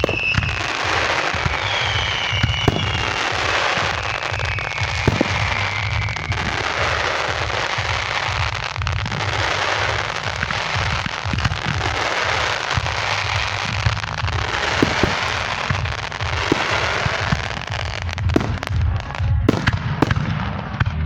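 Fireworks going off without a break: a dense crackle with many sharp pops and low thumps. In the first few seconds there are two falling whistles from whistling fireworks. The pops thin out near the end.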